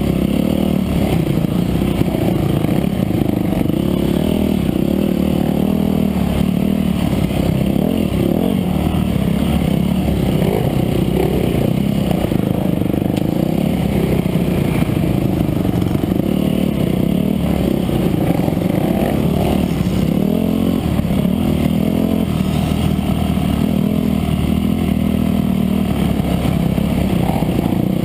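Off-road dirt bike engine heard close up from on the bike, running hard under way with its pitch rising and falling as the throttle opens and closes.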